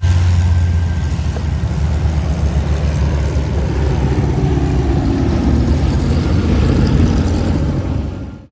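Loud, steady engine rumble, heaviest at the low end, fading out over the last half second.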